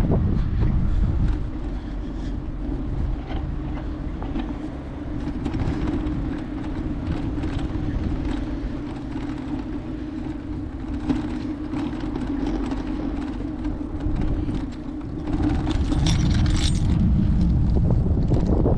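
Ride noise picked up by a GoPro on a moving bicycle: wind rumbling over the microphone and tyre and road noise under a steady hum, with small rattles. The wind rumble grows louder about sixteen seconds in.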